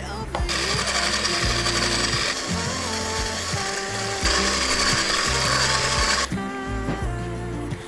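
Stick blender fitted with a balloon-whisk attachment whipping cream in a glass bowl: a steady motor whine with whisking noise that starts about half a second in, gets louder about four seconds in, and cuts off about six seconds in. Background music plays underneath.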